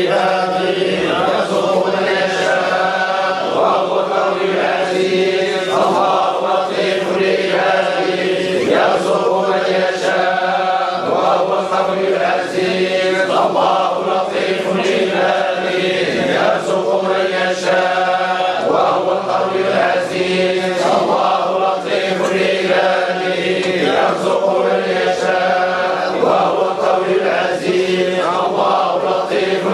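A group of men chanting a Sufi devotional chant (dhikr). Melodic sung phrases run continuously over a steady held low note.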